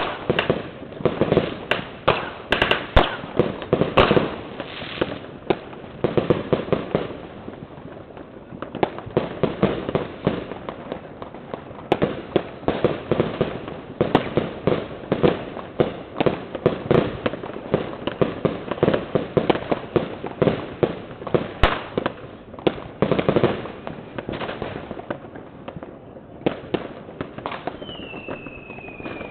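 New Year's fireworks and firecrackers going off in dense, continuous bangs and crackles, many a second. About two seconds before the end a short whistle falls in pitch and then holds.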